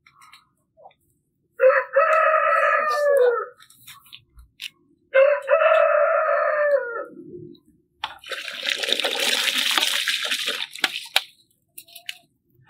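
A rooster crows twice, each crow about two seconds long and dropping in pitch at the end. About eight seconds in comes a loud rushing hiss that lasts about three seconds.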